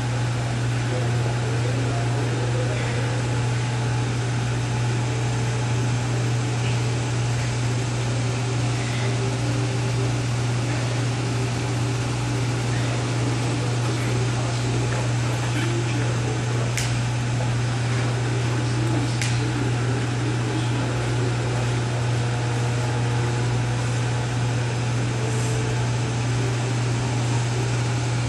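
Steady low hum and hiss of room ventilation, unchanging throughout, with a couple of faint clicks past the middle.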